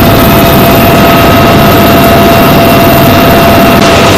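UH-1Y Venom helicopter in flight, heard from inside its open-door cabin. A steady turbine whine sits over a loud, even roar of rotor and wind.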